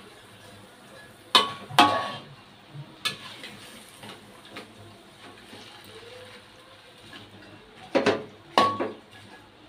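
Metal spatula clanking and scraping against a wok while stirring spinach and corn: a couple of sharp, ringing clanks about a second and a half in, one near three seconds, and two more near the end.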